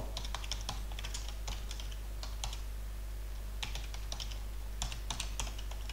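Computer keyboard typing: quick runs of light keystrokes with a pause of about a second midway, over a low steady hum.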